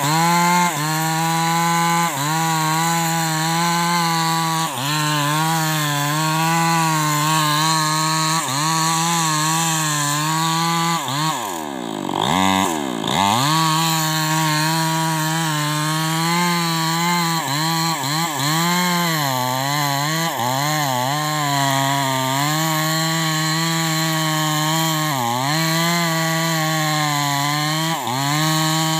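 Maestro 6500L two-stroke chainsaw running at high revs as it cuts through a hard acacia trunk, its pitch dipping briefly under load every few seconds. About twelve seconds in, the engine falls sharply in pitch and revs back up.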